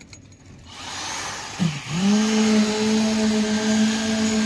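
Concrete needle vibrator running in fresh concrete to compact it. A rising machine sound dips briefly in pitch, then settles about two seconds in into a loud, steady hum.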